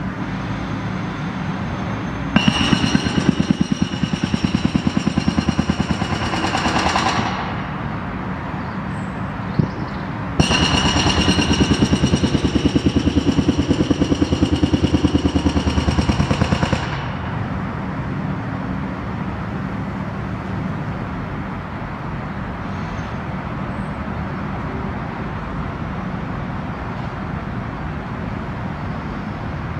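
Hydraulic breaker on a Takeuchi TB2150R compact excavator hammering concrete in two long runs of rapid, evenly spaced blows, about five and six seconds long. The excavator's engine runs steadily underneath and between them.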